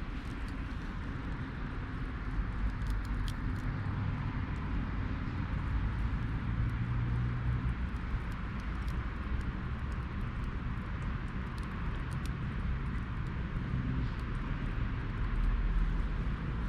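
Hardwood campfire with scattered faint crackles over a steady low rumble.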